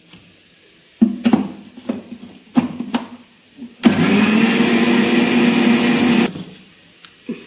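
Indian mixer grinder (mixie) running for about two and a half seconds, grinding fried masala spices to powder in its small steel jar, then cutting off. Before it starts there are a few knocks of the steel jar and lid being fitted.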